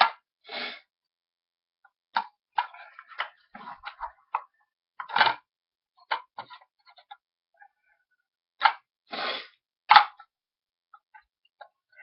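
Dip cans being handled and set in place one after another: a string of sharp clicks and knocks with a few short scrapes, the loudest knock about ten seconds in.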